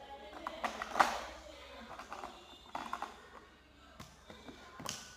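Handling sounds of small craft materials: three short clusters of clicks and crackles about two seconds apart, the first the loudest.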